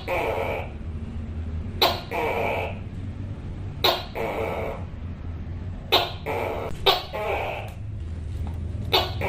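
Tokay gecko calling over and over: each call opens with a sharp click-like 'to' and is followed by a drawn-out, throaty 'kay' lasting about half a second. The calls come about every two seconds, with two closer together near the middle.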